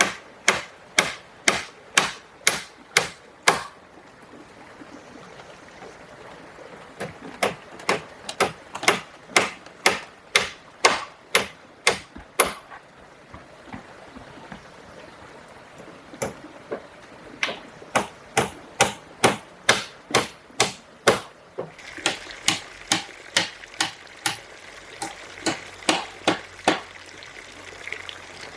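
Repeated blows of a hand tool striking, about two a second, in runs of several seconds with short pauses between runs. A steady rush of running water comes in about two-thirds of the way through.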